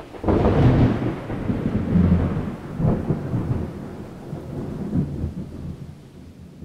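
Rolling thunder: a rumble that starts suddenly, swells several times and dies away near the end.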